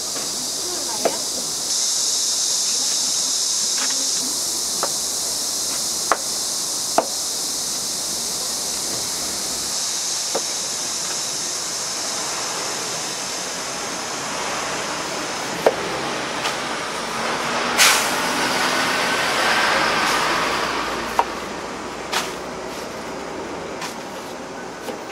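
Scattered sharp knife taps on a cutting board as fruit is cut, over a steady high hiss, with a broader rushing noise swelling up in the middle and fading near the end.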